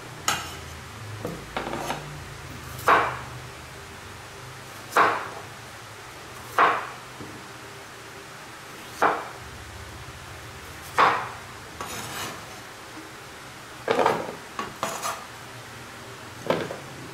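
Kitchen knife cutting peeled raw potatoes on a wooden cutting board: a sharp knock each time the blade goes through and hits the board, about every second or two, with softer scraping and rubbing between strokes.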